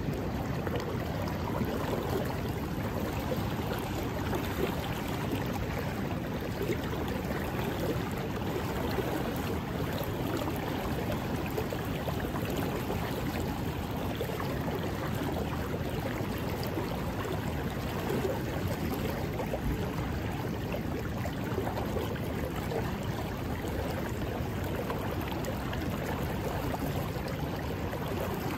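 Steady rushing of a fast-flowing river's current.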